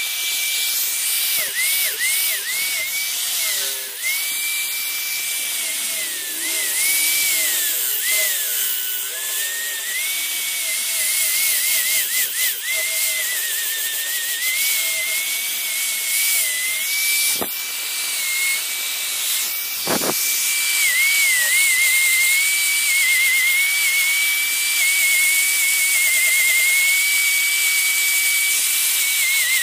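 Handheld angle grinder with a sanding disc sanding carved teak wood. A high motor whine sags and wavers in pitch each time the disc is pressed into the wood, over a steady hiss of sanding, with two sharp knocks in the second half.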